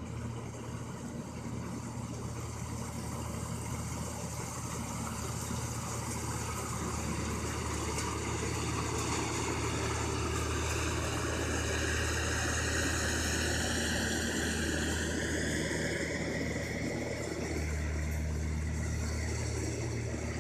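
Rice combine harvester's engine running steadily under load, with a high mechanical whine that drifts up and down in pitch through the middle.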